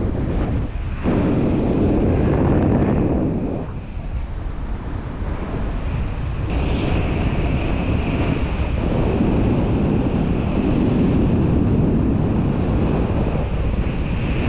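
Wind rushing over an action camera's microphone during a tandem paragliding flight: a loud, steady rumble of buffeting air that swells and eases every few seconds.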